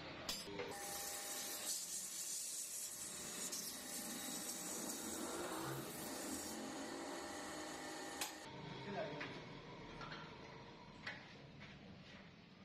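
Abrasive paper held against a cast brake drum spinning in a lathe, a steady hiss from about half a second in until about 8 s as the turned surface is polished. After that the lathe runs more quietly, with a few light knocks.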